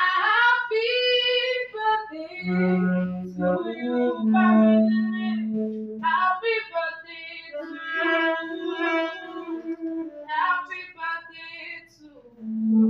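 A woman singing a song, with a steady low note held under her voice at times.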